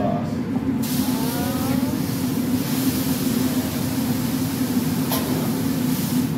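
Water sizzling into steam on a hot teppanyaki griddle as it is poured on and wiped with a towel, a steady hiss starting about a second in. A steady low hum runs underneath.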